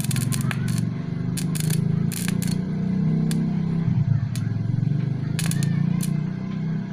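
Edon 450-watt stick welder's electrode striking an arc on a steel bar: short bursts of arc crackle, about six times, over the welder's steady low hum. The arc keeps going out, which the owner puts down to a 450-watt household supply being too weak for the welder.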